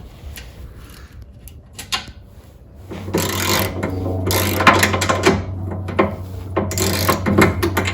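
Ratchet wrench with a 13mm socket clicking in quick runs as a muffler bracket bolt is backed out. There is a stretch of about two seconds from three seconds in, then a shorter run near the end, over a steady low hum.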